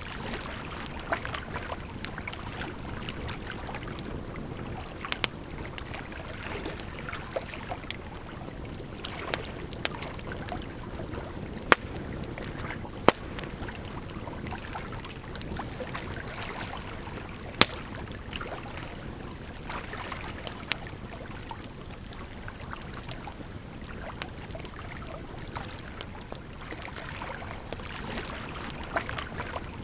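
Burning firewood giving off scattered sharp crackles and pops, the loudest about twelve, thirteen and eighteen seconds in, over a steady rush of flowing water.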